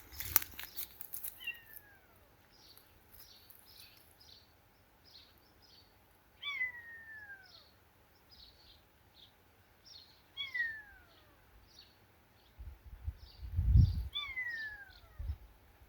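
A cat meowing four times, each a high mew falling in pitch, with a low thump near the end.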